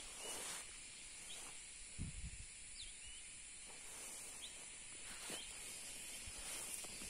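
Field ambience: insects droning steadily at a high pitch, with short high chirps from small birds every second or so and a soft low bump about two seconds in.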